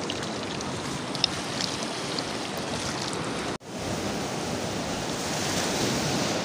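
Surf breaking on the edge of a reef flat, a steady wash of waves. It drops out for an instant about three and a half seconds in, then comes back slightly louder.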